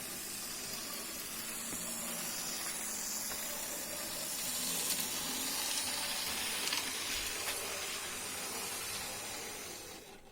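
Two Lima model locomotives running together on the track, their small motors and wheels giving a steady hiss that slowly builds. The sound drops away abruptly at the end.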